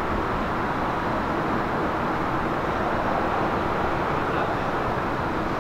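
Steady outdoor traffic background noise: an even, unbroken hum and rush.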